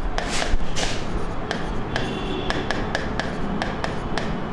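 Stylus writing on an interactive touchscreen board: a quick run of sharp taps, about three a second, with a couple of brief scratchy strokes near the start.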